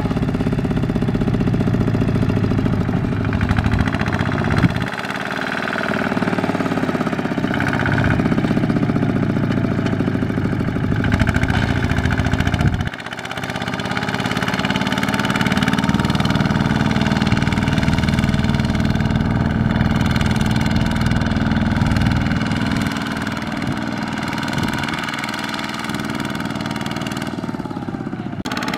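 Single-cylinder diesel engine of a Kubota ZT155 walking tractor running steadily while it pulls a loaded trailer through mud, with sudden shifts in the engine sound about 5 and 13 seconds in.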